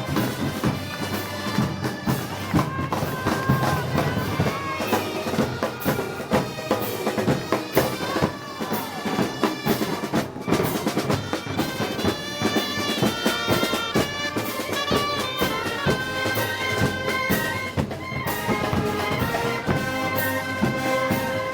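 Moros y Cristianos festival band music: reed and brass instruments play a melody over regular drum strokes.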